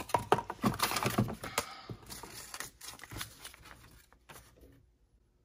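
Rapid clicking and rattling of a utility knife's blade-release mechanism as its button is pressed and the blade is worked, busiest in the first two seconds and thinning out toward the end.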